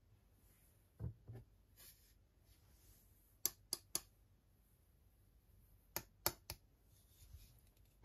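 Faint, sharp clicks and soft knocks of a plastic headphone stand being handled and set down on a desk, with two quick runs of three clicks.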